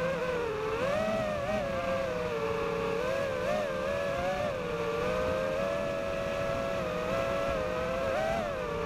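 FPV racing quadcopter's electric motors and propellers whining, heard from the drone's onboard camera, the pitch wavering up and down with the throttle.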